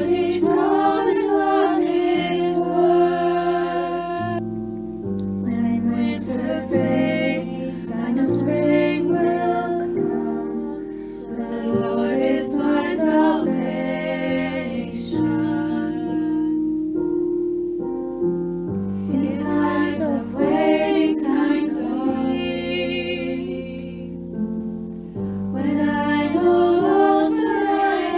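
A hymn sung with instrumental accompaniment. The voices sing in phrases with short breaks between them, while the accompaniment holds sustained notes underneath.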